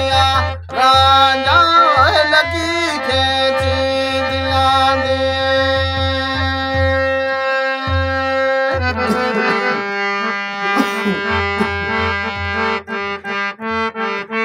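Harmonium playing sustained chords for a Hindko folk song, with a hand frame drum beating a steady rhythm underneath. A man's voice sings briefly about a second in, the harmonium chord changes about nine seconds in, and the drum strokes stand apart near the end.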